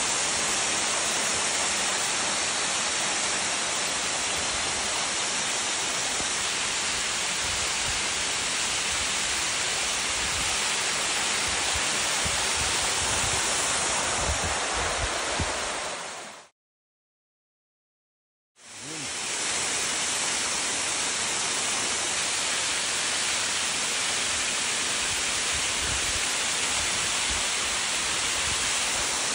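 Waterfall cascading over granite ledges: a steady, even rush of falling water. It cuts out completely for about two seconds midway, then resumes.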